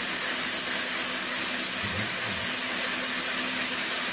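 Milling machine running with its end mill cutting into a steel bar to make a fish plate: a steady loud hiss with a low hum underneath.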